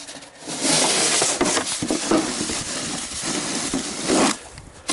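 Snow shovel scraping along a sidewalk, pushing snow in one long continuous scrape that stops shortly before the end.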